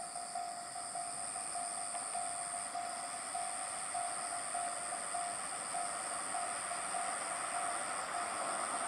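Japanese railway level-crossing warning bell ringing steadily at about two strokes a second, with the rush of a train growing louder near the end.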